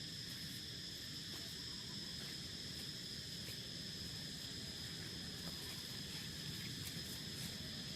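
Steady, unbroken high-pitched insect trill, like crickets, over a low, even background rumble.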